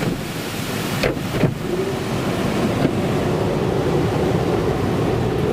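Automatic car wash spraying and sheeting water over the car, heard from inside the cabin as a steady rushing wash. A couple of short knocks come about a second in.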